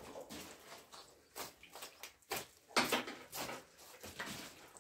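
Irregular sharp knocks and scrapes of pork being cut and handled on a steel butchering table, the loudest few in the middle.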